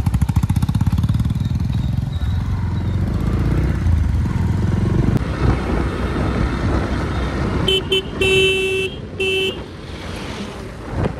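Motorcycle engine and road noise while riding, with a vehicle horn sounding three times near the end: short, long, short.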